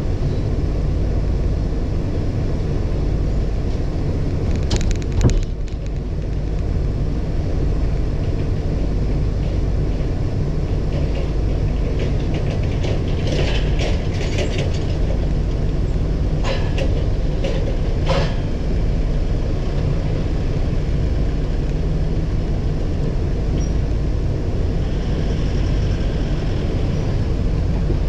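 Steady low rumble of an idling truck engine, with a few short metal clanks and rattles of scrap being handled: one about five seconds in, and a cluster between about 13 and 18 seconds in.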